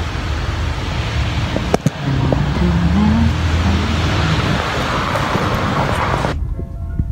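Steady traffic noise, a low rumble under a rushing hiss, with a short click about two seconds in. It cuts off sharply near the end into background music.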